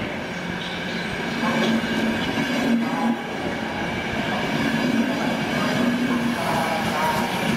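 Passenger train coaches rolling steadily past, wheels and bogies running on the rails.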